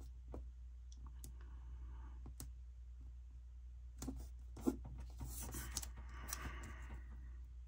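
Paper sticker pieces handled and pressed onto a planner page: scattered light clicks and ticks, with a few sharper ones about four and five seconds in, then a soft rustle of paper for a second or two.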